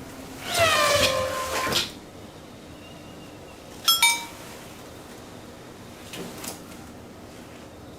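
Animal calls: one long call that falls in pitch and then levels off, and two short high chirps near the middle.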